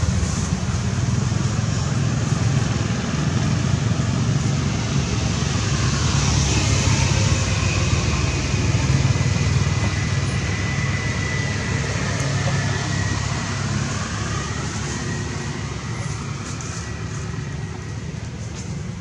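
Steady low outdoor rumble with a hiss above it, and a faint thin high tone for several seconds around the middle.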